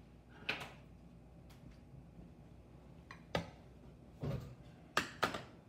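About half a dozen separate clicks and knocks of kitchen utensils as a metal cookie scoop is fetched and handled at the counter, the sharpest two close together near the end.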